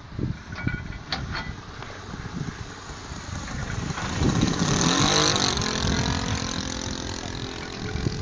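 Radio-controlled model Hawker Hurricane Mk1a flying past, its motor swelling to its loudest about five seconds in and then dropping in pitch as it goes by.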